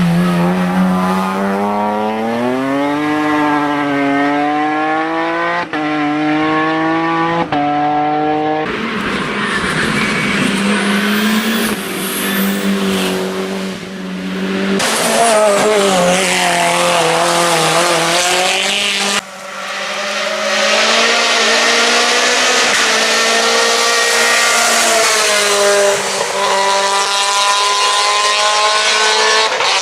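Hill-climb race cars driven hard: engines revving up and down with quick gear changes in the first several seconds, tyres squealing, and a car passing on full throttle later on.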